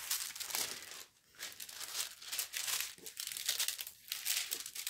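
Clear plastic protective film crinkling in irregular crackles as hands press and smooth it back down over a diamond painting canvas.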